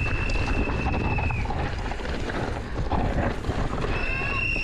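Steady low rumble with wind buffeting the microphone, typical of a downhill mountain-bike run filmed on the move. A long, steady, high whistle-like tone sounds at the start and again near the end.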